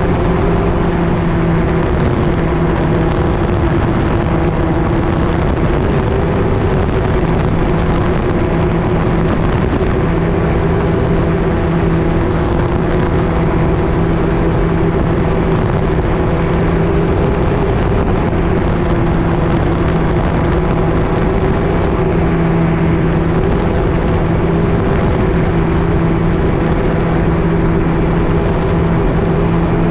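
Gyroplane engine and pusher propeller running at a steady power setting, a constant droning hum, over the steady rush of air.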